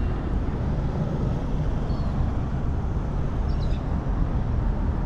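Steady low rumbling outdoor noise, with two faint high chirps near the middle.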